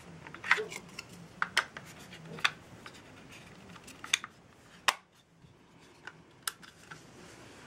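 Hands handling a small black plastic LED video light: a string of sharp plastic clicks and taps with light scraping between them, the loudest clicks about half a second in and just before the five-second mark.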